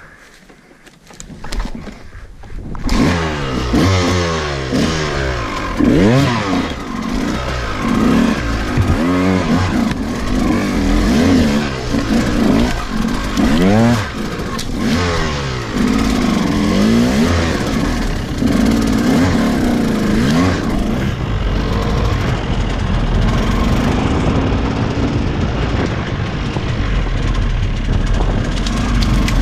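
KTM EXC 200 single-cylinder two-stroke enduro engine, picking up about two seconds in, then revving up and down repeatedly as the bike is ridden over rough ground.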